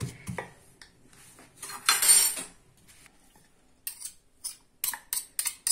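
Kitchen utensils clinking and scraping: a spoon working against a dish, with one longer scrape about two seconds in and a run of short, sharp clinks near the end.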